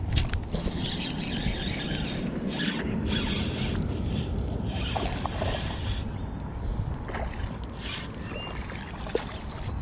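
Spinning reel being cranked in spells, its gears and bail whirring as a hooked fish is wound in, over a steady low rumble of wind on the microphone.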